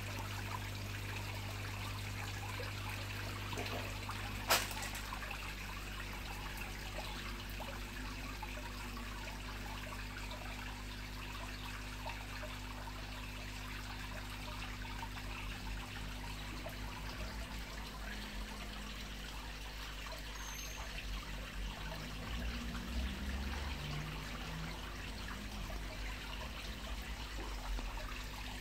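Water trickling and splashing steadily into a garden koi pond, over a constant low hum. A single sharp click about four and a half seconds in.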